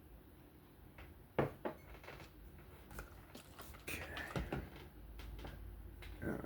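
A few light clicks and knocks of small hard objects being picked up and set down on a work surface, the loudest about a second and a half in, with a cluster of them in the middle.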